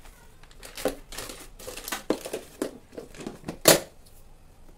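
Plastic flour packet crinkling and rustling as it is handled, a run of irregular rustles with one louder crackle a little before the end.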